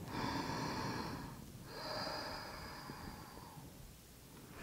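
A woman breathing audibly and slowly, close to the microphone, while holding a seated yoga twist. There are two long breaths: one at the start lasting about a second and a half, then another from just under two seconds in lasting about two seconds.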